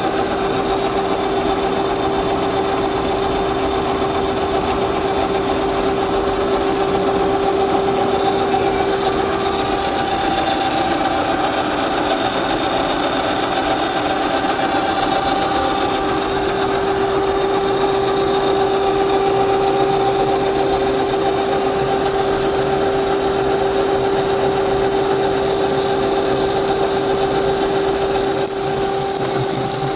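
Metalworking machine tool running steadily, cutting 4140 hot-rolled steel, with a constant motor whine over a rough cutting noise. The whine fades for a few seconds partway through and then comes back.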